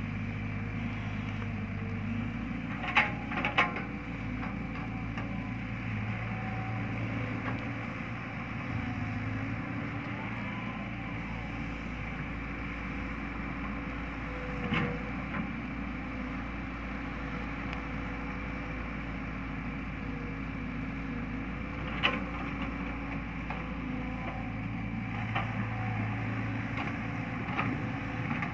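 Caterpillar hydraulic excavator's diesel engine running steadily as it digs soil and loads a dump truck. The engine note swells for a few seconds at a time under hydraulic load, and a few sharp knocks stand out, the loudest about three seconds in.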